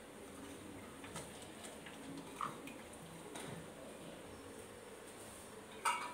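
Faint kitchen handling sounds: soft ticks and rustles as sliced raw onion is tipped from a small glass bowl into a pan of raw chicken, with a brief louder sound near the end.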